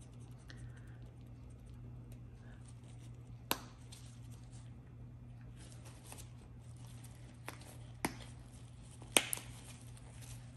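Gloved hands handling small plastic mixing cups and pigment bottles on a work table, with light rustling and a few sharp clicks and taps as they are picked up and set down, the loudest about nine seconds in. A low steady hum runs underneath.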